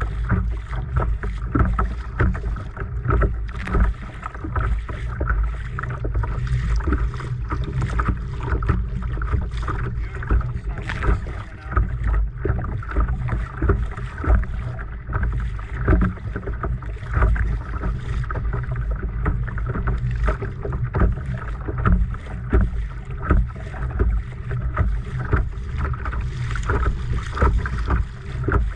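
Small waves slapping irregularly against a kayak hull on choppy water, over a steady low rumble of wind on the microphone.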